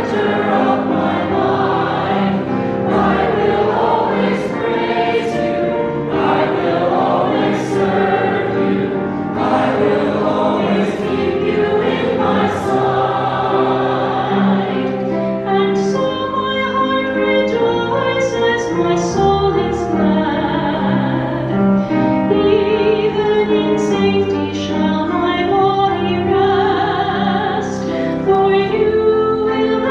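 A choir singing a hymn with accompaniment, steady and full throughout; from about halfway the sound shifts to clearer, more distinct held notes.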